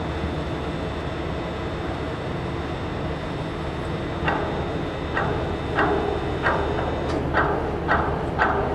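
Steady low drone with a few fixed tones from the Bjoernoe, a 2,692 hp general cargo ship moving through a harbour lock. From about halfway through, about a dozen short, sharp knocks or clicks come roughly twice a second over the drone.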